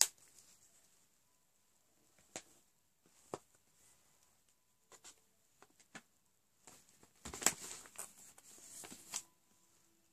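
Handling noise from makeup palettes and their packaging: a few scattered light clicks, then a burst of rustling and clicking from about seven to nine seconds in.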